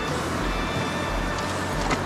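Background music with a steady, even bass beat over a constant rushing hiss.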